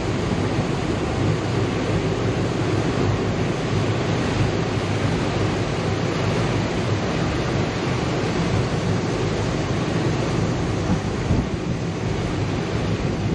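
Steady rush of wind on the microphone and water washing along the hull of a motor yacht under way, with a low steady drone underneath.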